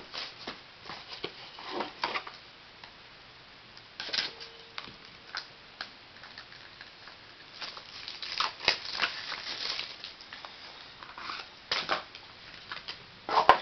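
Trading card pack being opened and its cards handled: scattered light clicks, scrapes and short rustles at irregular moments.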